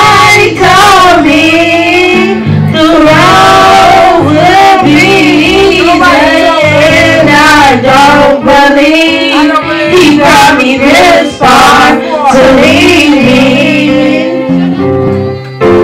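Two women singing a gospel song through microphones and a PA, over a guitar playing a low bass line of held notes.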